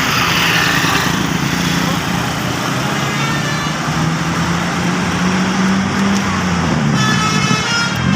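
A bus passing with engine noise and people's voices, then a multi-tone telolet bus horn starting to sound about seven seconds in.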